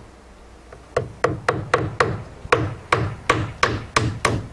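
Claw hammer driving a finishing nail into the mitered corner of a rough cedar fascia board: a quick run of hammer blows, about three or four a second, starting about a second in.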